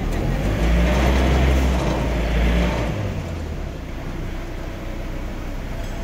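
Iseki 325 farm tractor's diesel engine running, louder and harsher for the first three seconds or so, then easing back to a steadier, lower run.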